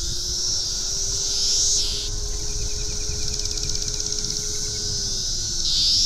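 Dense chorus of periodical cicadas: a high-pitched drone that swells louder and fades back in slow waves, rising about one and a half seconds in and again near the end.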